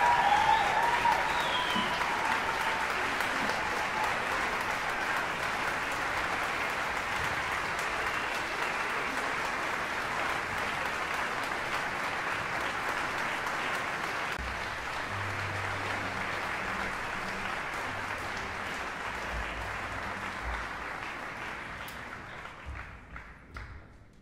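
Concert audience applauding, with a brief cheer at the start; the applause thins and dies away near the end.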